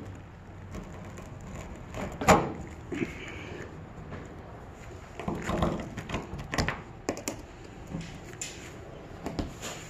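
Scattered knocks and clatter from hand work. The sharpest knock comes about two seconds in, and a run of knocks follows between about five and seven seconds.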